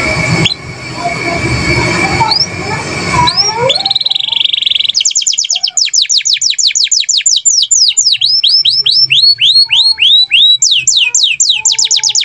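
Domestic canary singing: over a noisy low rumble at first come a few rising whistles, then a buzzy held note about four seconds in, followed by long rolls of fast, repeated downward-sweeping notes, several a second, changing pace and pitch partway through.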